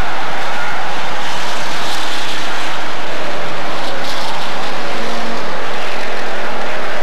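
A pack of street stock race cars with V8 engines running on a short oval, their engines loud and steady as the cars pass.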